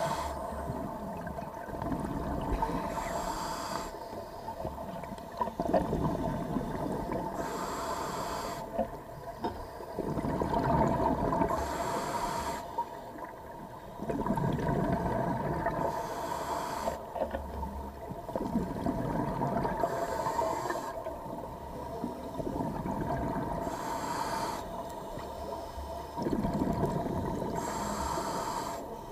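Scuba diver breathing through a regulator underwater: a short hiss on each inhale, then a bubbling rumble of exhaled air, repeating about every four seconds. A steady hum runs underneath.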